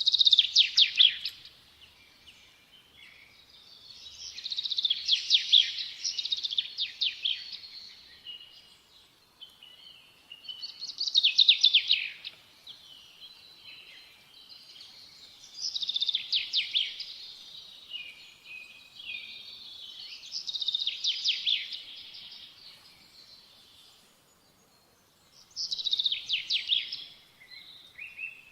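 A small songbird singing: six short, rapid phrases of quick notes running downward in pitch, one about every five seconds, with softer twittering between them.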